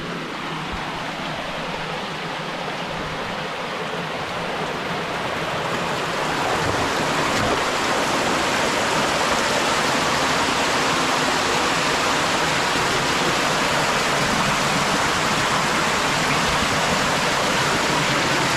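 Creek water rushing and splashing over rocks, growing louder over the first several seconds and then holding steady.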